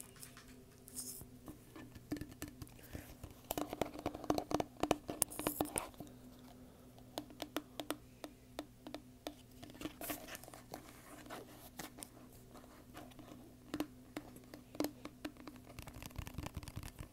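Fingers tapping and scratching on a hollow plastic bottle close to the microphone, in quick irregular clicks, densest about four to six seconds in and sparser after.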